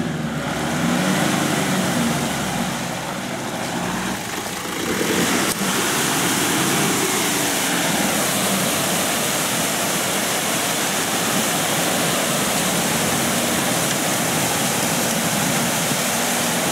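Lifted GU Nissan Patrol on 35-inch tyres, with lockers engaged, stuck in a deep mud hole, its engine revving up and down as the driver tries to drive out. From about five seconds in, a steady rush of spinning tyres flinging mud and water takes over.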